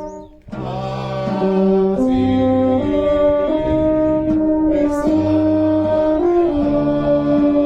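Brass band playing slow, sustained chords over a bass line, coming back in about half a second in after a short break.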